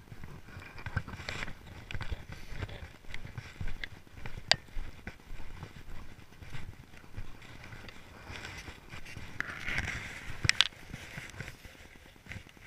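Footsteps on snow with clothing rustle, irregular steps and knocks. About ten seconds in, a rustle and two sharp clicks as an SUV door is opened and someone climbs into the seat.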